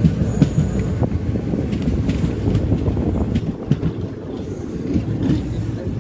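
Passenger train running along the track: a steady rumble with irregular knocks and clatter from the wheels and coach.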